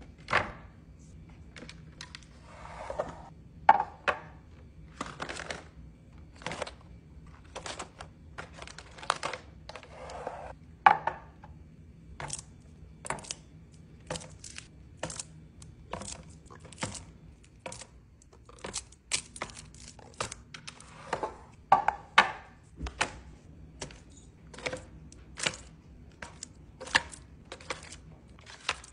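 Kitchen items being handled for restocking: a quick, irregular run of small clicks, taps and knocks of containers and lids being set down and closed, with a few short rustles of packaging.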